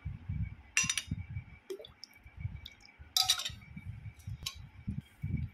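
Steel ladle clinking against a steel pot twice, about a second in and again about three seconds in, while colostrum is poured into milk and stirred. Soft low thuds of handling between the clinks.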